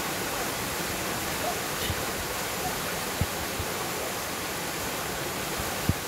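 Waterfall with two streams pouring over rock ledges into a pool: a steady rush of falling water. Two brief low bumps, one about three seconds in and one near the end.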